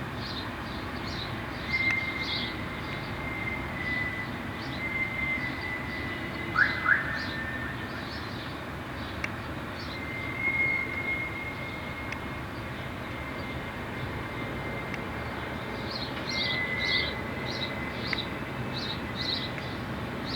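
Distant high-pitched squeal of freight-wagon brake shoes on a railway hump yard: thin drawn-out screeches that come and go, with two sharp rising squeaks about seven seconds in. Birds chirp over it, mostly near the start and towards the end.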